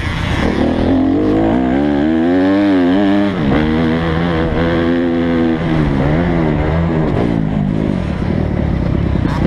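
Motocross dirt bike engine revving hard up close, heard from the rider's own bike. Its pitch climbs, drops sharply about three seconds in, then holds and wavers up and down with the throttle.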